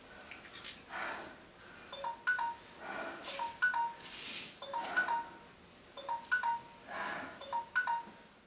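Short, clear, bell-like notes at two pitches, struck again and again in an irregular pattern, mixed with bursts of hiss.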